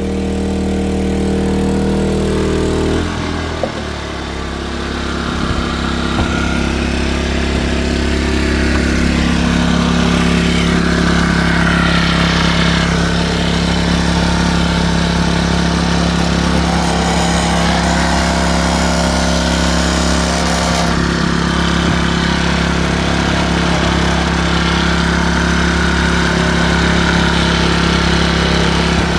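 Westinghouse iGen2550 inverter generator's engine running steadily. About three seconds in its engine note changes as the engine speed shifts, then it holds steady.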